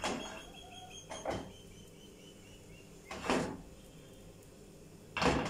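Non-stick frying pan being moved about on a gas stove's metal grate: four short scraping knocks, the last two the loudest.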